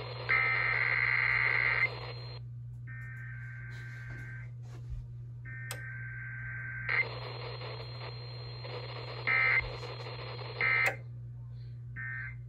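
Emergency Alert System digital header tones: three screeching data bursts, each about a second and a half long and a second apart. Later come three short bursts of the same tones, about a second and a half apart, over radio hiss and a low hum.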